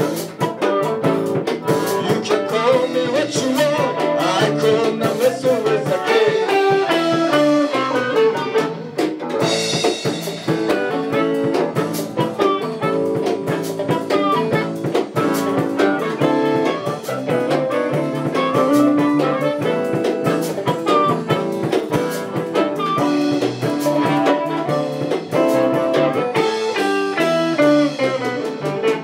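Live band playing electric guitars over a drum kit.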